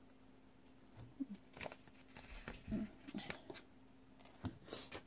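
Faint rustling and light tapping of paper handling as small bubble stickers are peeled from a sticker sheet and pressed onto a planner page, starting about a second in.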